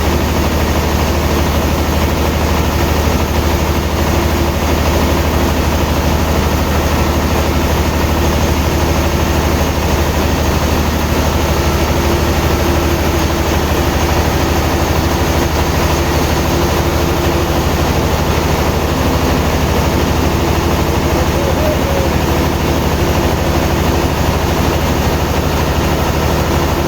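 Sawmill machinery running steadily, a low engine hum at an even pitch with no rise or fall.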